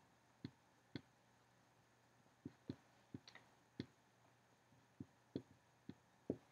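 Faint, irregular clicks of a dry-erase marker tip tapping on a whiteboard during handwriting, about a dozen scattered through near silence.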